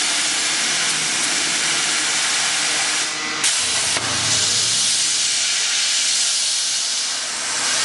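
CNC plasma cutter torch, fed by a Hypertherm power source, cutting sheet metal: a loud, steady hiss of the plasma arc and cutting gas. It drops briefly about three seconds in, with a sharp click, then comes back.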